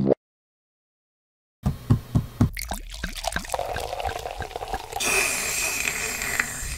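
Coffee poured from a glass carafe into a mug, starting about a second and a half in with splashing strokes and settling into a steadier stream about five seconds in.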